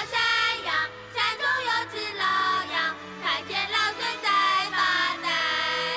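A group of children singing a song together over musical accompaniment, in high voices with some long held notes.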